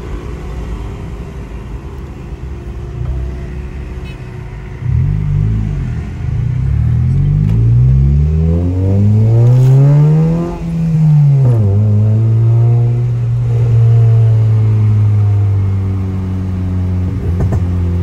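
Honda car's engine and aftermarket muffler exhaust heard from inside the cabin: running steadily at first, then revving up with a climbing pitch as the car accelerates hard, dropping in pitch about halfway through, then holding a steady drone.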